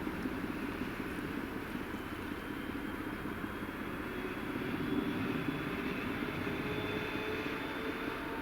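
Passenger train running past, a steady rumble with a faint high whine.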